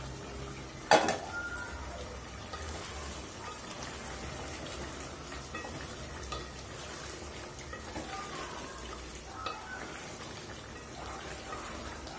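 A sharp metal clank about a second in as the aluminium pot's lid comes off. After it, a wooden spatula scrapes and stirs a thick duck meat curry in the pot while it fries gently over the gas burner, at the kosha (braising-down) stage.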